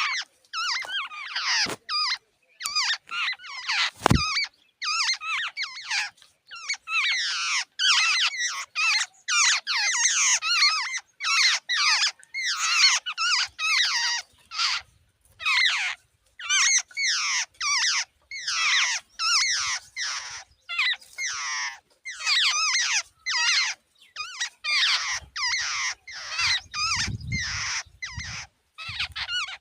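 Jungle babblers calling at the nest: an unbroken run of short, harsh, squeaky calls, several a second with brief gaps between phrases. A single thump about four seconds in, and a low rumble near the end.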